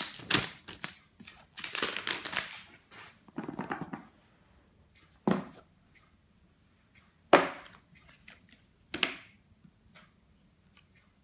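Packaging on a smartphone box crinkling and rustling as the box is opened, a softer rustle as the cardboard lid comes off, then three sharp knocks as the lid and the box are set down on a wooden tabletop.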